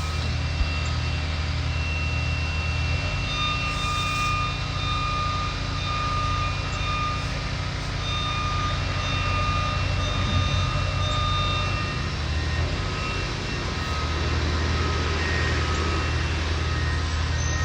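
Heavy demolition machinery's diesel engine running steadily, with a backup alarm sounding repeated beeps over it.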